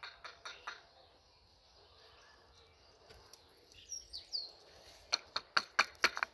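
Footsteps crunching over dry grass and twigs, a quick run of sharp crackles in the last second and a half. A bird chirps briefly in the middle.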